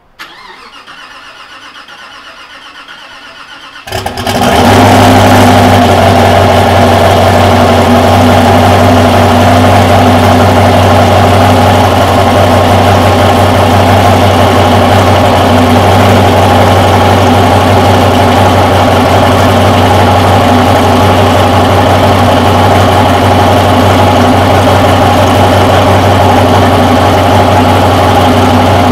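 Hennessey Venom GT's twin-turbo V8 cold-starting. The starter turns the engine over for about four seconds, then it catches and settles into a loud, steady idle. It is heard from inside an enclosed wooden trailer.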